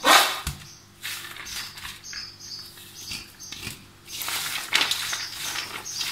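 Peeled garlic cloves and their papery skins rattling and rustling in a steel tray as it is shaken and hands stir and rub the cloves, loudest at the very start and then continuing as irregular rustles and scrapes.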